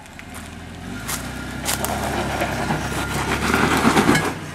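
Toyota LandCruiser 80 Series engine working hard under load as the 4WD climbs rock steps, mixed with tyres crunching over rock. It builds up from about a second in, is loudest near the end, then drops away.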